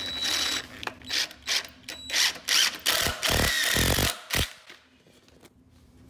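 DeWalt power driver driving a 3-inch wood screw into a wooden rack leg through a long bit extension. It runs in short, irregular spells with mechanical clicking, and there are a few dull thumps about three to four seconds in. The last second and a half is much quieter.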